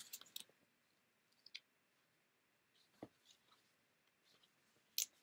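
Near silence with faint clicks of picture-book pages being flipped and handled, a soft low thump about three seconds in, and a sharper click near the end.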